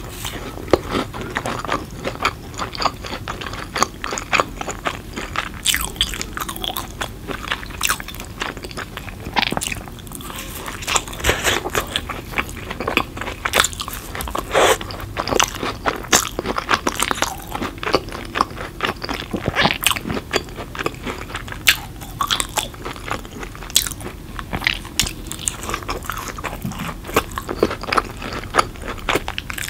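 Crisp, crackly crunching and chewing of a square Cheez-It cracker-crust pizza, close to the microphone. Repeated bites and crackles follow one another all through.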